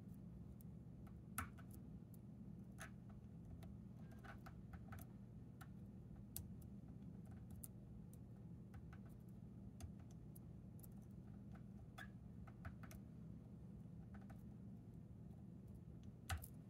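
Faint, irregular small metallic clicks of a hook pick working the pins of a Chicago Lock Co pin-in-pin tubular lock held under tension, over a steady low hum. The sharpest clicks come about a second in and near the end.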